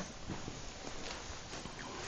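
The pause between a sleeping man's snores: soft breathing noise with a few faint clicks and no snore.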